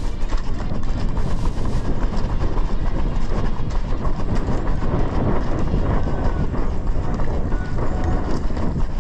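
Running footsteps and the jostling of a head-mounted action camera, a steady rapid clatter of thuds over a heavy low rumble on the microphone.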